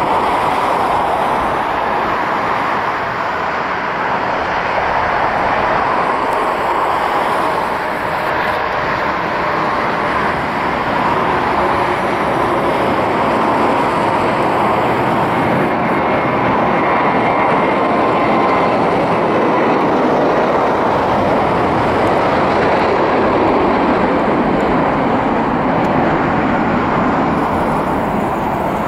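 Jet engines of a Boeing 737 airliner at takeoff power, a steady loud rush with a faint whine, swelling slightly midway as the jet rolls down the runway and climbs out.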